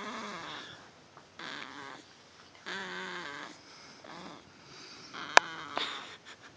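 Sleeping pet snoring in a run of short breaths, about one every second and a half, each carrying a pitched tone. A sharp click a little past five seconds in is the loudest sound.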